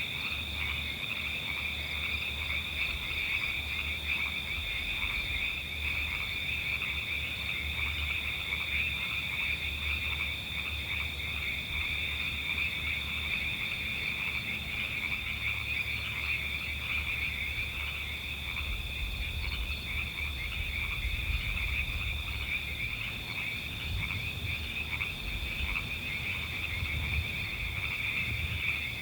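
A dense frog chorus: many frogs calling at once in rapid trills, a continuous high-pitched pulsing with no pauses.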